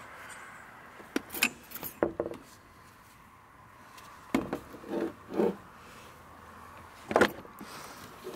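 Metal hand tools (a socket extension and ratchet) clinking and knocking against metal parts in a truck's engine bay. There are a few sharp clanks with short pauses between them, and the loudest comes about seven seconds in.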